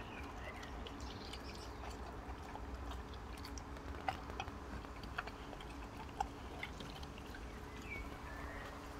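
Boxer dog licking up and chewing small pieces of watermelon from a wooden deck: faint wet mouth smacks, with a few sharper smacks about four, five and six seconds in.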